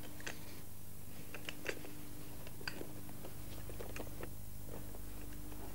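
A scattering of small clicks and taps as a toy electric locomotive is handled and set back onto its sectional track, over a steady low hum.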